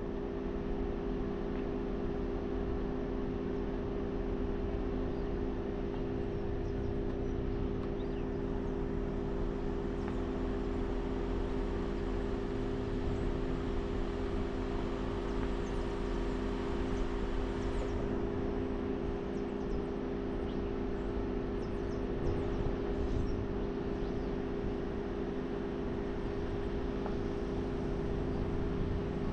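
A vehicle's steady running noise: a constant engine hum over a low rumble, holding unchanged throughout.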